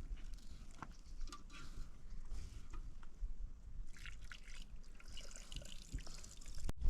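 Faint water dripping and trickling, with scattered small clicks.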